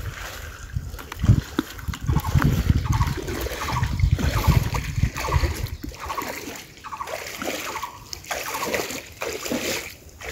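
Water splashing and sloshing as a cast net is gathered and hauled out of shallow pond water by a man wading in it. A run of short, repeated pitched calls, about two a second, sounds through the middle of it.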